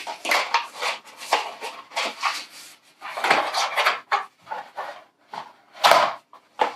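Product packaging being worked open by hand: an irregular run of rustling, scraping and small knocks, loudest about six seconds in.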